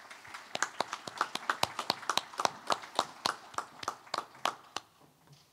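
A small group of people clapping, the separate hand claps heard one by one rather than as a dense roar, thinning out and stopping near the end.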